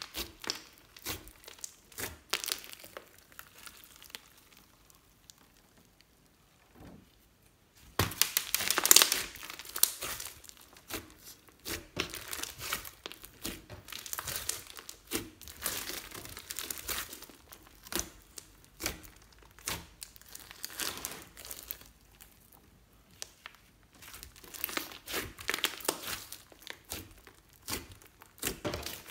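Hands squeezing, stretching and pressing purple fluffy slime with small beads mixed in: a run of sticky crackling and popping clicks. It falls almost silent for a few seconds after about four seconds, then comes back at its loudest.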